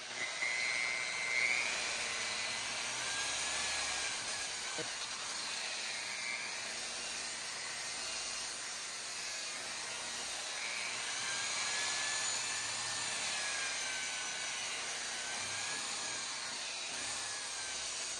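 Corded rotary polisher running at low speed with a wool pad buffing polishing compound into clear-coated paint: a steady electric-motor whine whose pitch drifts slowly up and down as the pad is worked over the panel.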